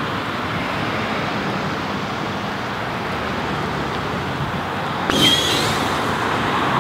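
Steady noise of a car fire crackling, with road traffic passing. About five seconds in comes a short sudden pop, which sounded like another tire or an airbag bursting in the fire.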